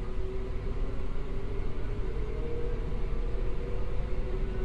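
Model railroad train running on layout track: a steady rumble and clatter of its wheels on the rails, with a steady hum beneath it.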